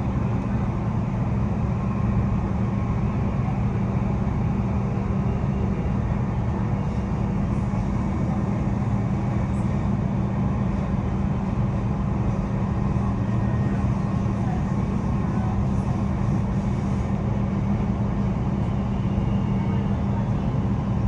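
Steady running noise heard inside a Queensland Rail NGR electric multiple unit travelling between stations: a low hum with the rumble of the wheels on the rails, unchanging throughout.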